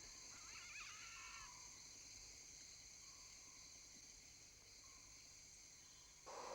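Faint rainforest ambience near silence: a steady high insect drone, with a brief warbling animal call in the first second and a half.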